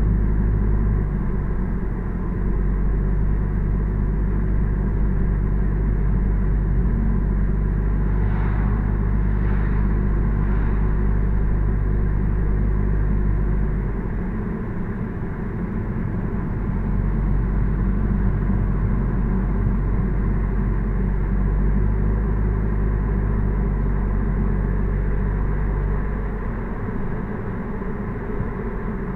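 A car driving along a highway: steady low engine and road rumble, easing off slightly twice. Three faint, short high sounds come about a second apart roughly a third of the way in.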